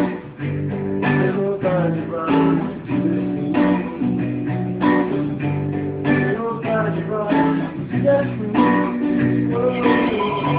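Acoustic guitar strummed in a steady rhythm, with chords struck over and over.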